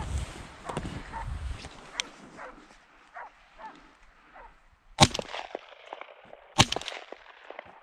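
Faint baying of a Russian hound running a hare, then two shots from a Benelli shotgun about a second and a half apart, fired at the hare as it breaks toward the shooter. The shots are the loudest sounds.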